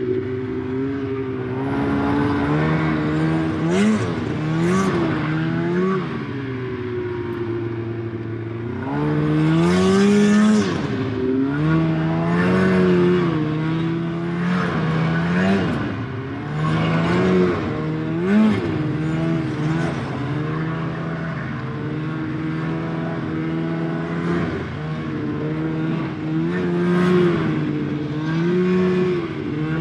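Snowmobile engine running while ridden, its pitch rising and falling over and over as the throttle is opened and eased, with the biggest rev about ten seconds in.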